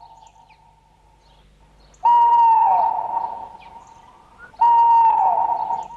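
Long hooting calls on a cartoon soundtrack: two loud ones and the start of a third, each holding one pitch and then sliding down at its end. A faint steady tone comes before them.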